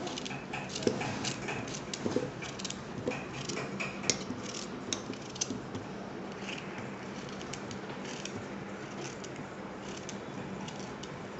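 Kitchen knife cutting a cucumber into rough chunks that drop into a stainless-steel mixer-grinder jar: a run of crisp cuts and light clinks, most of them in the first half and thinning out after.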